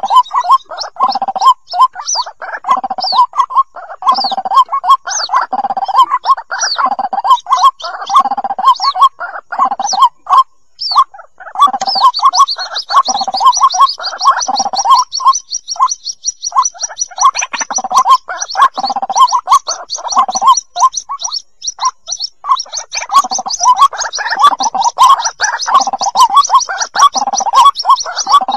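White-breasted waterhen chicks calling for the parent: a rapid, continuous run of gurgling calls that breaks off briefly about ten seconds in. From about twelve seconds in, a fast, high trill runs alongside them.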